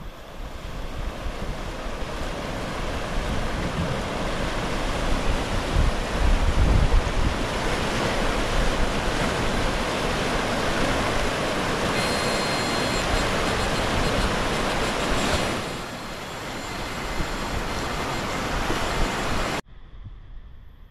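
Fast river rapids rushing over rocks, a loud steady wash of water, with wind buffeting the microphone. The sound cuts off abruptly near the end, leaving it much quieter.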